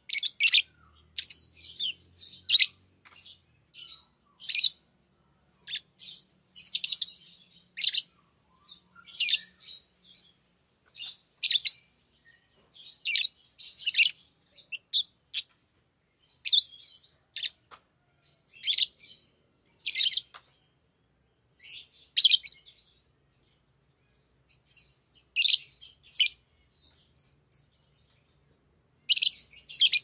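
Pet lovebirds giving short, sharp, high-pitched chirps in small clusters every second or two, with brief pauses between.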